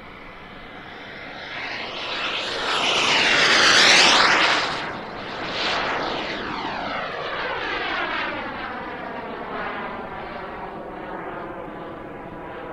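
Radio-controlled Xtreme A.R.F. Vixen jet's Jet Central Mammoth turbine on a flypast: the roar and whine swell to a peak about four seconds in, dip briefly, then fade slowly as the jet moves away.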